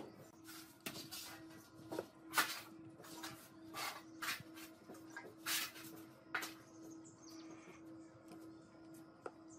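Hands handling a small pine-slat frame during glue-up: a string of short scrapes and knocks of wood on wood, over a steady low hum.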